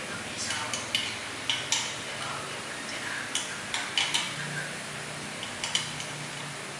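Hand tool and screws clicking and clinking against a ceiling fan's blade bracket and motor housing as a blade is fastened on: about a dozen short, sharp clicks at irregular intervals.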